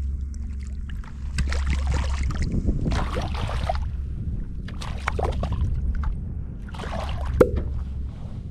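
Wind rumbling steadily on the microphone, with several short bursts of water splashing and sloshing around the wading angler. A single sharp click is heard near the end.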